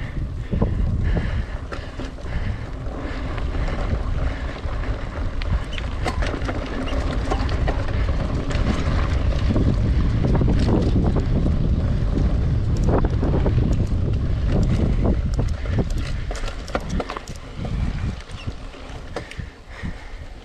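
Heavy wind buffeting on the microphone with scattered knocks and rattles, swelling through the middle and easing near the end.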